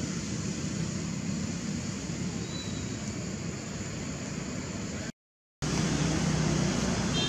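Steady outdoor background noise with a low rumble and no distinct events. It drops out completely for about half a second about five seconds in, then comes back slightly louder.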